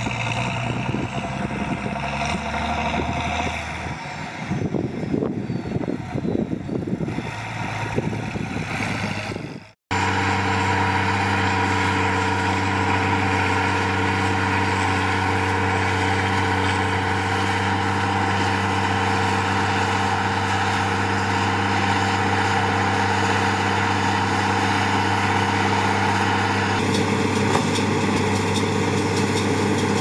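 IHC 1246 tractor's six-cylinder diesel engine working under load with a Claas Rollant 46 round baler in tow. About ten seconds in, the sound cuts out for a moment and comes back as a steady, even engine note.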